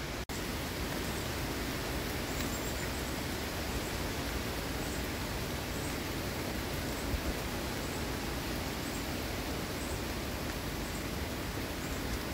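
Steady hiss of heavy tropical-storm rain and wind outdoors, briefly cutting out just after the start.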